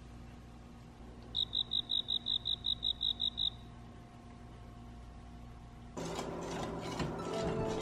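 A rapid run of about a dozen short, high beeps over two seconds. From about six seconds in, a wire whisk beats eggs in a glass bowl, scraping and clicking against the glass in a steady rhythm.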